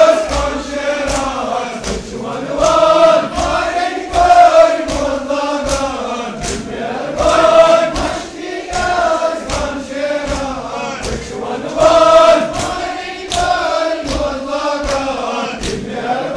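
A group of men chanting a nauha, a Muharram lament, in unison, with a steady beat of hands slapping on chests (matam) keeping time.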